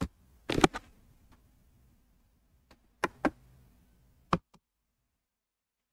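Computer mouse clicking: about eight short, sharp clicks at uneven intervals, a close pair about half a second in and another pair about three seconds in, then a last click near four and a half seconds.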